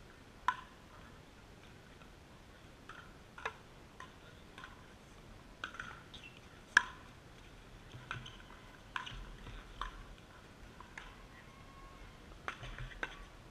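Pickleball rally: repeated sharp pocks of paddles striking the hollow plastic ball, mixed with the ball bouncing on the hard court. The loudest hits come about half a second in and about halfway through.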